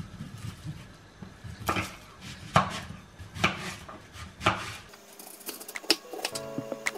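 Kitchen knife chopping an onion on a cutting board, slow single strikes about once a second. About five seconds in, light background music comes in.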